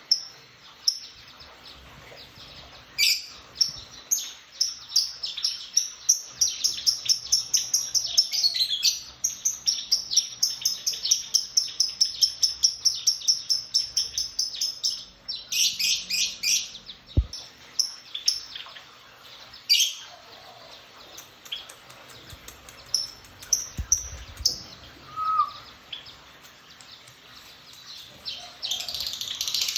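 Lovebirds chirping: sharp, high, shrill chirps, with a long fast run of repeated chirps through the middle and scattered calls before and after.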